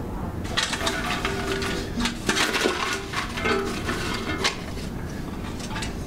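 Objects being rummaged through and handled: irregular clinks, clatters and rustles as someone digs through a container.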